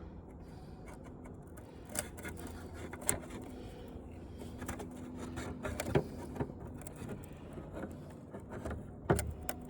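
Scattered light clicks and knocks of parts of an old TV being handled, the loudest about six seconds in and two close together near the end, over a faint steady background hum.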